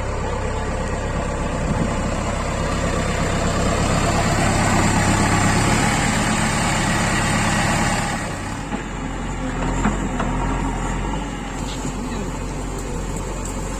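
Heavy diesel engine running, getting louder over the first several seconds, then dropping back about eight seconds in.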